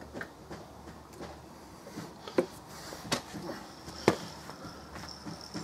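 Handling noise of someone working on a mower: scattered light clicks and three sharp knocks about a second apart, the loudest near the middle. A faint high insect chirring, like crickets, comes in near the end.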